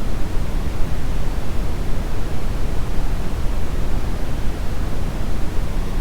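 Brown noise: a steady, deep rumbling hiss, with most of its weight in the low end, that does not change.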